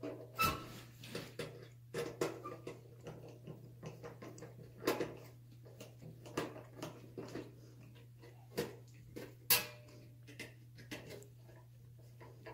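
Irregular small clicks, clinks and knocks of a hand screwdriver and screws being handled and fitted, with a few sharper knocks about half a second in, around five seconds, and twice near nine seconds. A steady low hum runs underneath.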